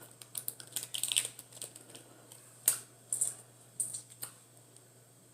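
Food packaging being handled: an irregular run of sharp clicks and crackles, bunched near the start and again around the middle.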